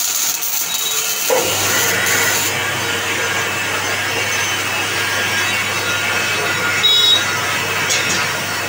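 Manual metal lathe running, with a steady scraping, hissing noise of cutting. A low hum comes in about a second and a half in and holds steady.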